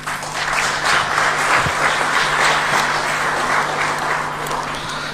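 Audience applauding: dense clapping that builds up within the first half second, holds, and tapers slightly near the end.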